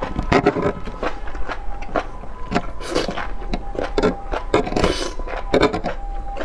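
Close-up eating sounds of enoki mushrooms in chili oil: wet chewing and slurping, with two longer slurps about three and five seconds in. Light scrapes and clicks of a fork on a metal tray run through it.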